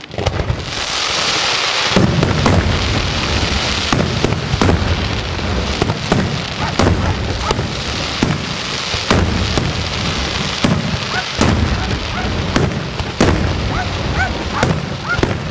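Daytime coloured-smoke fireworks: a hissing rush for the first couple of seconds, then a steady string of sharp bangs, about one or two a second, over a low rumble, with a few short rising whistles among them.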